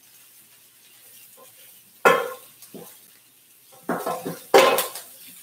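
Spatulas, one of them wooden, scraping and knocking in a skillet of fried rice as clumped day-old rice is broken up and stirred. A handful of separate scrapes start about two seconds in, and the loudest come near the end.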